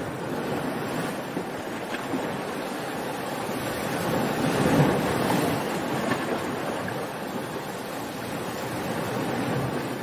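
Small ocean waves washing up a sandy beach: a continuous rushing surf that swells to its loudest about halfway through, then eases back.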